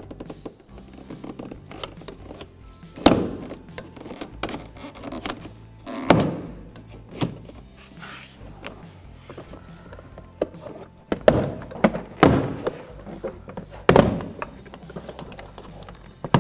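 Plastic retaining clips of a 2001 BMW 325Xi front door panel popping loose one by one as the panel is pried off the door with a plastic trim tool: several sharp snaps spread out over the stretch, bunched together near the middle. Background music plays underneath.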